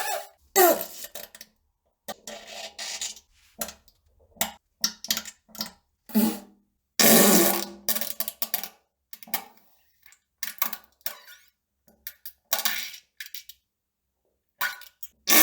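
A string of fart sounds: about fifteen short blasts, most under a second, with silent gaps between. The longest and loudest comes near the middle.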